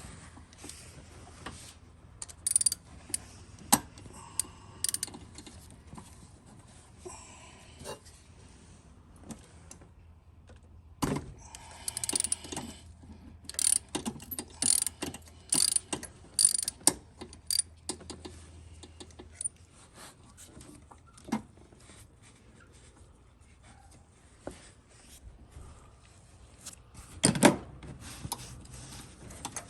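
A ratchet wrench with a spark plug socket clicking in short, irregular runs, with metal tool knocks, as a spark plug is worked loose from the V8's cylinder head. There is a louder knock near the end.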